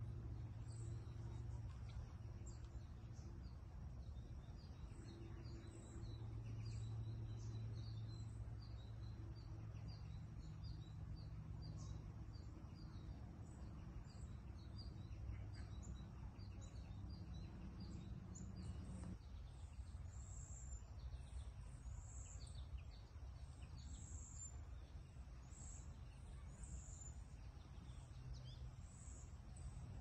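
Many short, high bird chirps, several a second, over a steady low background rumble; around two-thirds of the way through, the chirps move to higher notes.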